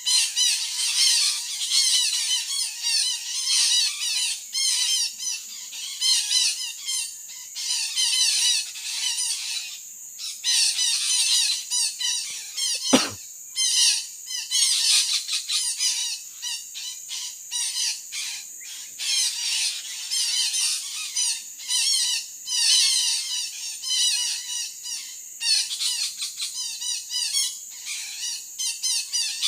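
Parakeets calling continuously in dense, overlapping high chattering squawks, the kind of flock chatter used to lure birds in when trapping. A single sharp knock sounds about halfway through.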